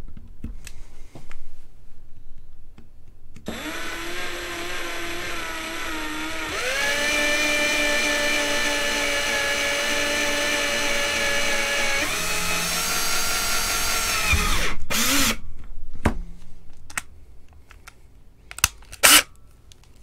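Handheld electric drill boring a pilot hole through a half-inch PVC slip cap. The motor whine starts about three seconds in, steps up to a higher speed, drops to a slower speed, and stops about fifteen seconds in. Two brief bursts and a few clicks follow.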